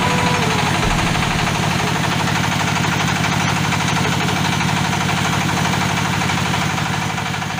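Floating feed-pellet machine running steadily, its engine giving a fast, even pulsing.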